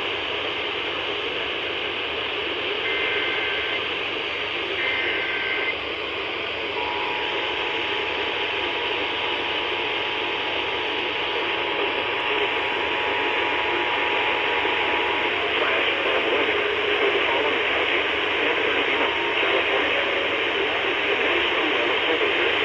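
Heavy radio static carrying an incoming Emergency Alert System alert for a flash flood warning. A few seconds in, two short bursts of SAME header data warble, then the two-tone EAS attention signal sounds steadily for about eight seconds and cuts off. The static goes on after the tone.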